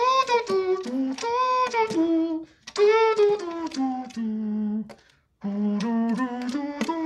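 A high-pitched voice singing a melody note by note, with a short break about five seconds in.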